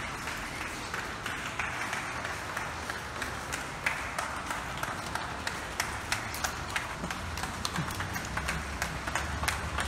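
Many people clapping at once from the surrounding apartment blocks, heard as a steady patter with sharp single claps that grow denser through the second half.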